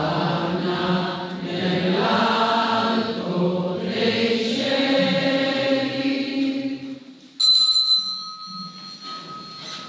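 Voices singing a slow chant in a reverberant church. About seven seconds in the singing stops, and a small altar bell rings out sharply, its bright tone ringing on and fading away.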